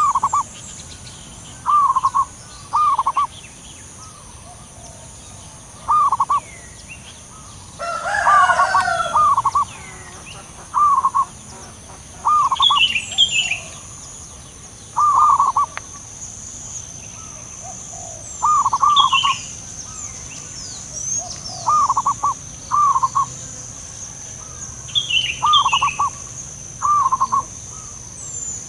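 Zebra doves cooing back and forth: short, rolling coos repeated every second or two. A louder, different call comes about eight seconds in, other birds chirp faintly a few times, and a steady high-pitched buzz runs underneath.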